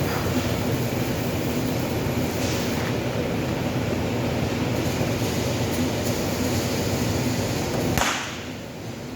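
A steady machine hum and rumble, which stops with a sharp click about eight seconds in.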